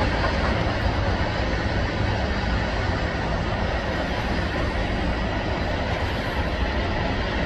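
Freight train of covered hopper cars rolling past, a steady, unbroken noise of steel wheels on the rails, heaviest in the low end.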